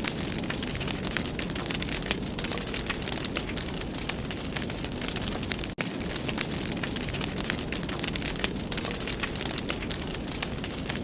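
Wood fire burning in a fireplace, a steady hiss with frequent sharp crackles and pops. The sound cuts out for an instant about six seconds in.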